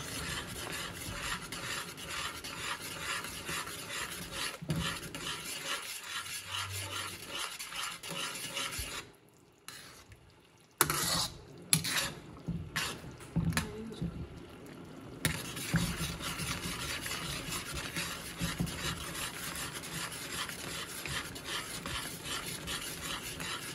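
A spatula stirring and scraping round a steel wok of simmering vegetable Manchurian gravy in quick, regular strokes. The stirring stops for about two seconds around nine seconds in, then a few sharp knocks come before it resumes.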